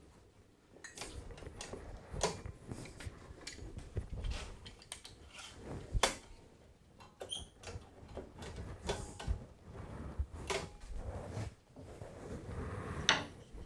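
Irregular knocks, taps and scrapes of a wooden workpiece and tools being handled and clamped down on a wooden workbench, the loudest knock about six seconds in, with a short squeak just after seven seconds.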